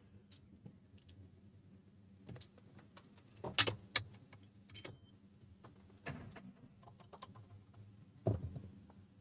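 Scattered small clicks and taps of soldering tools against a circuit board while the pins of a charging port are soldered, the loudest a few seconds in and again near the end, over a faint steady electrical hum.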